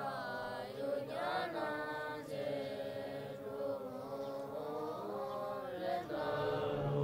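Young Tibetan Buddhist monks chanting a liturgy together, many voices reciting as one group.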